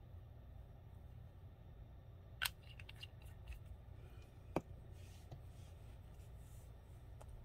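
Small plastic clicks and taps as a gel polish bottle and its brush cap are handled and capped and a painted nail-tip swatch is set down, two sharper taps standing out among lighter clicks, over a low steady hum.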